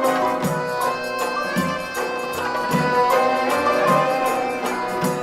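Instrumental passage of a traditional-style song used as background music, with a steady beat.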